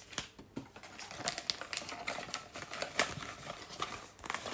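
A string of irregular light clicks and taps, small objects being handled close by.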